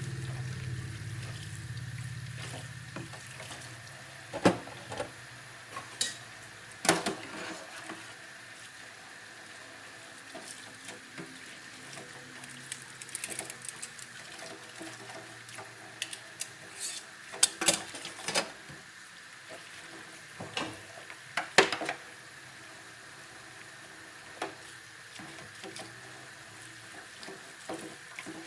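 Dishes being washed in a sink: water running steadily, with scattered sharp clinks and clatters of dishes knocking together.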